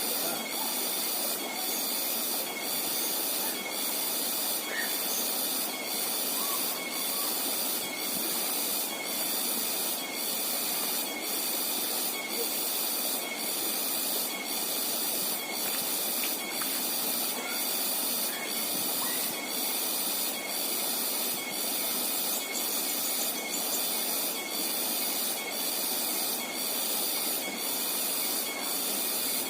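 Steady rushing of river water, with a high, even buzz above it that pulses about once a second.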